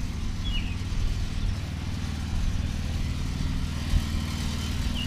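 An engine idling steadily with a low hum, with one short high chirp just after the start.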